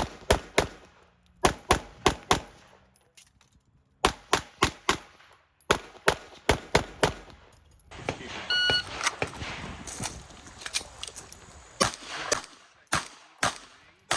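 Glock 48 9mm pistol fired rapidly in strings of quick shots, mostly in pairs, with short pauses between strings. A short electronic beep sounds a little past halfway.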